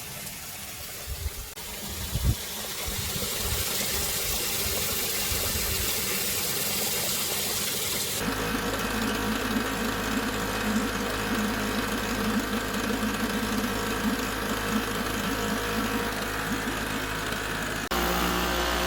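Small 3.5 hp outboard motor running on a kayak. It is a new engine still breaking in, and its idle is settling. The sound is irregular with low knocks at first, then runs steadily from about eight seconds in.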